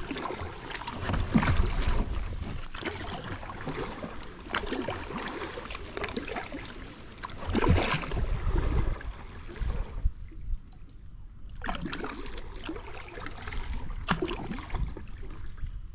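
Kayak being paddled on a river: irregular swells of splashing and sloshing water from the paddle and hull, with a low rumble of wind on the microphone.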